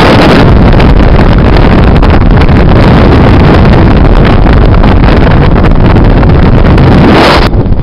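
Loud wind buffeting the microphone together with the rush and rumble of a car moving at speed. It eases slightly near the end.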